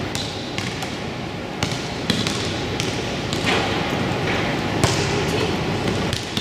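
Basketball bouncing on a gym floor during play, a series of sharp, irregular bounces over the steady din of the gym.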